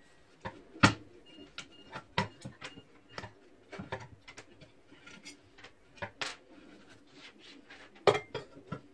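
Irregular clinks and knocks of hard metal objects being handled and set down, like tools and parts on a workbench, with the loudest knocks about a second in and near the end.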